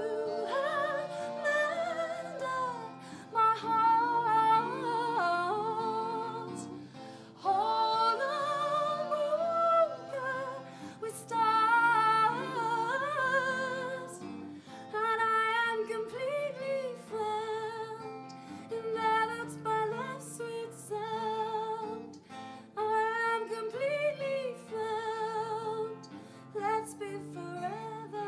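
A woman singing a slow melody with vibrato to acoustic guitar accompaniment.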